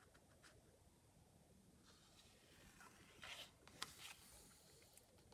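Near silence, broken about three seconds in by a short paper swish and a couple of light ticks as a book page is turned by hand.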